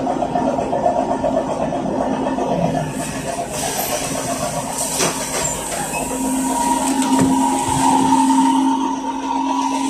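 ZiU-682G trolleybus running, with the rattle and rumble of its body and running gear. A sharp click comes about five seconds in, and from about six seconds in a steady electrical hum with two tones takes over.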